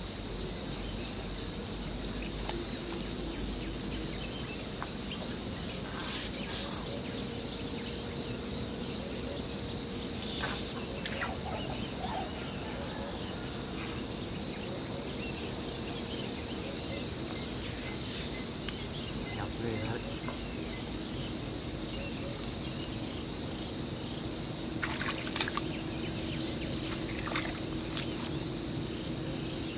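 Steady, high-pitched insect chorus with a fine rapid pulse, unbroken throughout, with a few faint ticks here and there.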